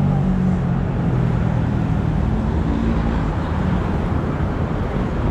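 Steady road traffic noise: a continuous low rumble of vehicles passing on a busy road below.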